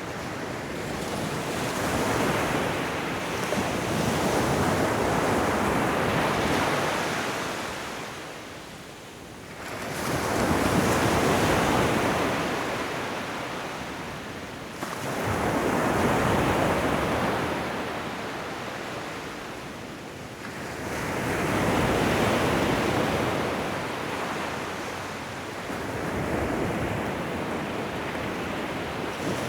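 Ocean waves breaking on a shoreline, each surge of surf swelling and then drawing back, about every five to six seconds.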